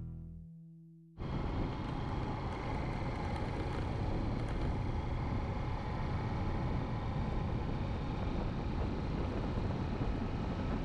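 Honda XR150 single-cylinder trail bike under way on the road: steady riding noise of engine and wind rush on the camera mic. It cuts in suddenly about a second in, after the tail of background music fades out.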